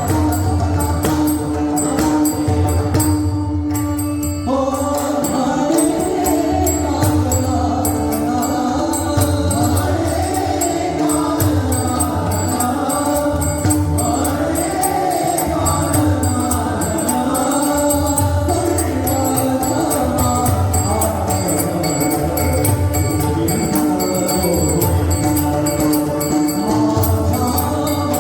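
Marathi abhang bhajan music: deep rhythmic pakhawaj and tabla drumming with jingling percussion under a held note, and voices singing the melody from about four seconds in.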